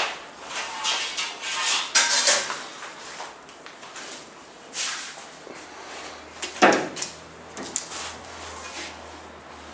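Aluminium profiles being handled: light metal clattering, sliding and scraping, with a sharp knock about two-thirds of the way through. A faint low hum sets in about halfway.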